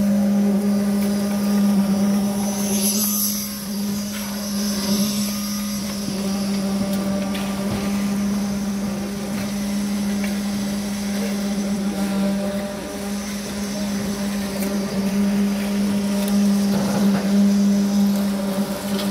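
Electric poker concrete vibrator running steadily, a continuous hum with one strong low pitch and its overtones, as concrete is poured onto the composite steel-deck floor slab.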